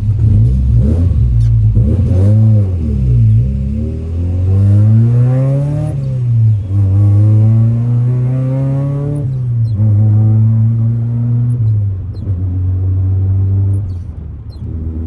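The stock 1.6-litre four-cylinder engine of a 1990 Mazda Miata, heard from inside the car, pulling through the gears. Its pitch climbs and drops sharply at each of several upshifts, then settles to a lower, steadier run near the end.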